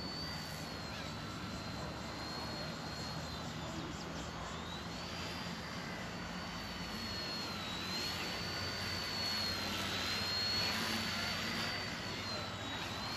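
Eachine E129 micro RC helicopter's rotor motors whining in flight, a thin high whine whose pitch dips and comes back up several times as the rotor speed changes. Wind rushes on the microphone underneath.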